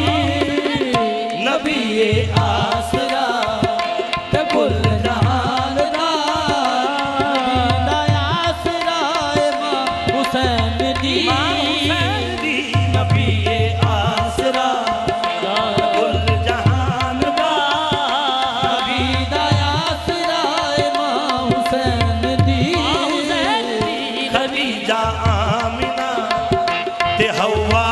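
Qawwali performance: men singing a devotional Punjabi qawwali over two harmoniums, one holding a long steady note, with a steady drum beat and hand clapping.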